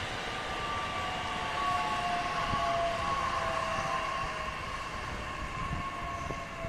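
Bombardier Talent 2 electric multiple unit running along the track, its traction drive whining in several steady tones that slowly sink in pitch, over the rumble of wheels on rail.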